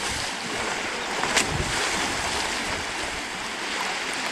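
Steady rushing noise, with one sharp click about a second and a half in.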